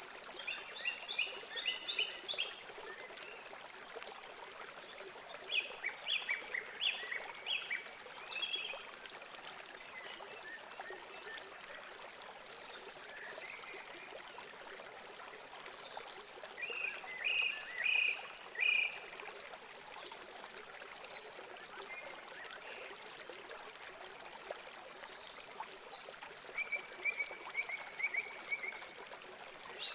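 Steady running-water noise, like a stream. Over it come short runs of quick, high chirping calls from a small animal, repeating every several seconds.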